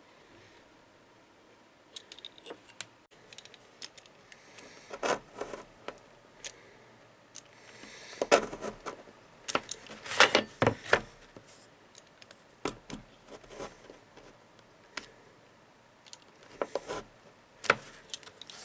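Irregular clicks, taps and light scrapes of hand handling, as of small tools and stiff leather being worked, with a busier cluster around the middle.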